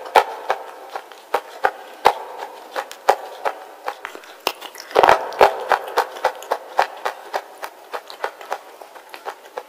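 Close-miked bites and crunching of a wet slate bar: a run of sharp, irregular crunches, with a burst of louder ones about five seconds in.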